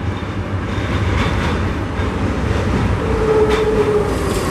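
Old streetcar passing close by, its wheels rumbling loudly on the rails with a held whining tone that dips slightly in pitch near the end and a few sharp clacks. The speaker says the old cars make a lot of noise.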